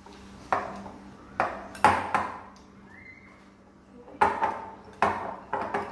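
Metal whisk clinking sharply against a glass mixing bowl as biscuit batter is stirred, in two runs of strikes each with a short ring.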